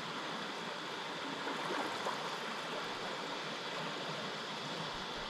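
A river in flood, its fast brown water rushing past with a steady noise.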